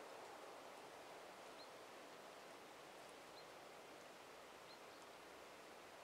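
Faint pine-forest ambience: a steady soft hiss, with a small bird giving three short high chirps spaced a second or two apart.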